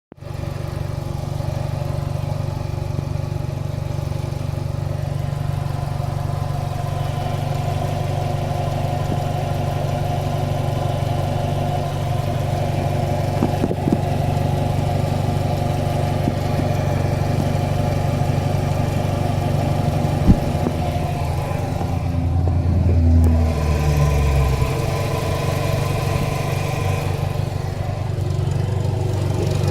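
Audi A3 1.8 turbo four-cylinder engine idling hot, with a metallic 'tec tec' ticking heard low down on the pulley side. The engine note shifts briefly about three-quarters of the way through. The ticking starts only once the engine is warm, and its cause is unknown.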